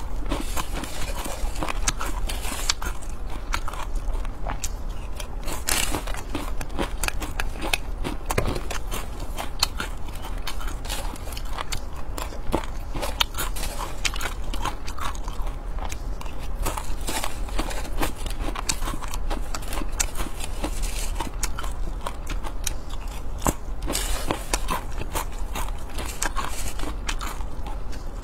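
Close-miked crunching and chewing of crispy fried grasshoppers: a dense, unbroken run of small crackles and crunches.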